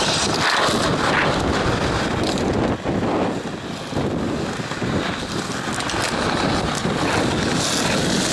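Skateboard wheels rolling over concrete, a steady rumble, with wind buffeting the microphone.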